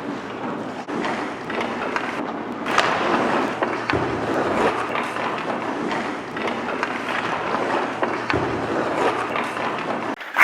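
Ice rink practice noise: skate blades scraping and carving on the ice, with scattered sharp knocks from sticks and pucks and a loud hit at the very end.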